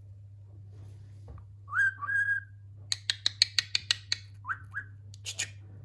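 Budgerigar whistling and chattering: two rising whistles, then a quick run of sharp clicks, then two shorter rising whistles and a few chirps.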